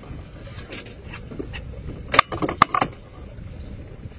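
Steady wind and water noise, with a quick run of four or five sharp metallic clicks about two seconds in, from fishing tackle being handled during the fight with the fish.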